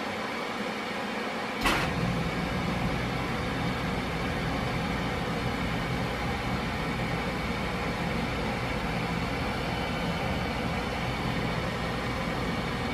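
1986 NuTone Proline 48-inch industrial ceiling fan running with a steady whir. A sharp click comes a little under two seconds in, and a deeper low hum joins the whir and stays after it.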